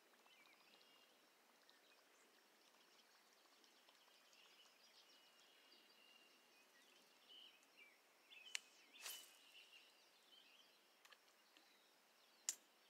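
Near silence, with faint distant bird calls and three sharp clicks, two close together about two-thirds of the way in and one near the end.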